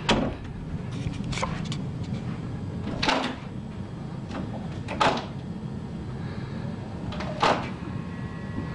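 White interior door knocking in its frame about five times, one to two and a half seconds apart, as it is pushed ajar from the other side.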